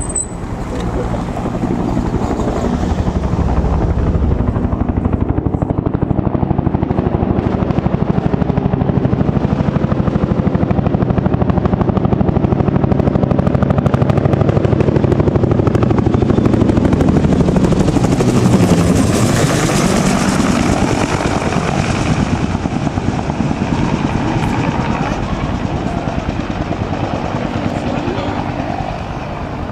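Helicopter flying past with a rapid, steady beat of rotor blades over its engine and turbine noise. It is loudest and brightest about two-thirds of the way through, as it passes closest.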